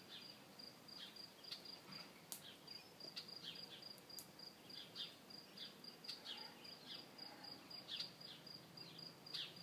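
Faint insect chirping: a steady, evenly pulsing high trill, with short falling chirps scattered over it.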